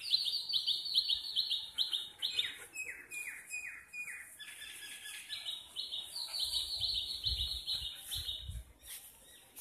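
A small bird chirping in fast runs of short, high notes, about five a second, broken about a third of the way in by a slower run of lower, falling notes before the quick chirping resumes.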